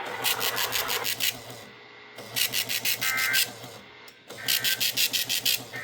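Small printer built into an Emergency Alert System decoder, printing the log of a received weekly test. It works line by line: each line is a one-second buzz of rapid clicks, with a short pause between lines, about every two seconds.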